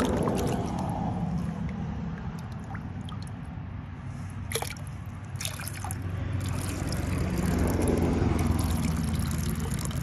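Water sloshing in a plastic gold pan and trickling off its lip into the creek as the pan is rocked to wash away the top layer of sand and gravel. A couple of sharp clicks about halfway through.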